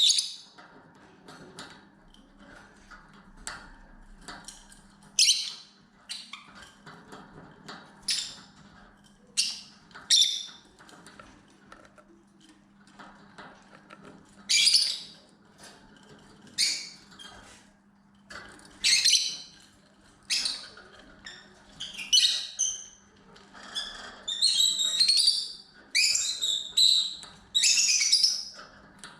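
Pet lovebirds giving short, shrill chirps and squawks, scattered at first and coming thick and fast near the end, over a faint steady low hum.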